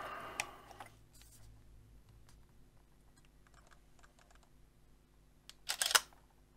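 Faint scattered clicks of a DSLR's buttons and dial being worked, then near the end a DSLR shutter fires once: a short, loud clatter of clicks.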